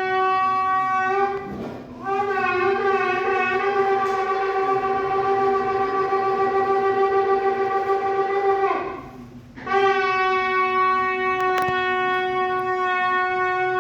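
Shofar blown in long, steady blasts. One blast ends about a second and a half in, then a long blast of about seven seconds with a wavering start, and another begins just under ten seconds in.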